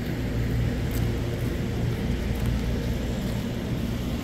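Steady low hum and rumble of running machinery, with a few constant low tones under an even background noise.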